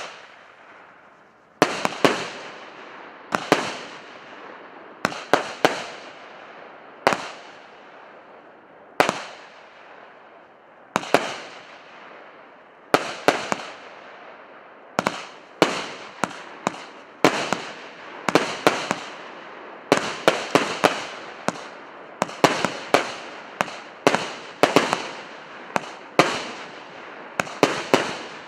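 A 100-shot, 1.2-inch consumer firework cake firing shot after shot: sharp bangs, each followed by a fading hiss. The shots come about every one to two seconds at first, then faster and in clusters of two or three from about halfway on.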